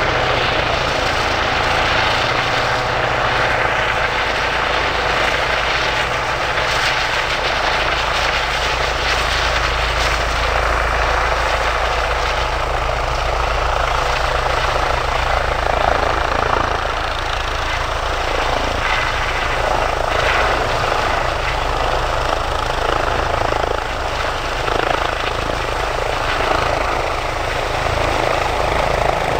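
Lifeliner 3 air ambulance helicopter, an Airbus H135 twin-turbine with a ducted tail rotor, hovering low near the ground. Its rotor and turbine noise runs loud and steady throughout.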